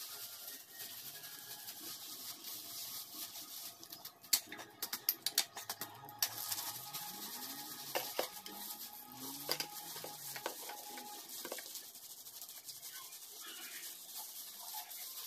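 Hands rubbing and squishing hair dye through wet hair, a soft crackly rubbing with bursts of faster crackling.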